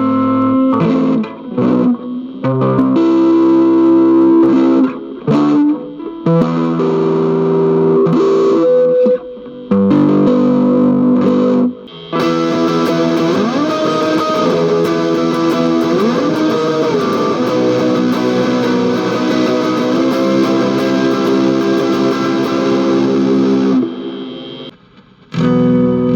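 Mexican Fender Stratocaster electric guitar played with the fingers through a Hotone Pulze Mini amplifier. For about the first half, chords ring and are cut short with brief stops. A longer, brighter sustained passage with bent notes follows, then a short pause near the end before the chords come back.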